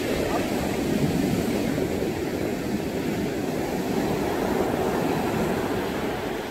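Ocean surf breaking on a sandy beach: a steady, low rushing rumble of waves, easing slightly near the end.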